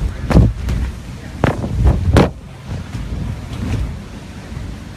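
Balloons brushing and bumping against a phone's microphone: a muffled rubbing rumble with four sharp thumps in the first half, then quieter rubbing.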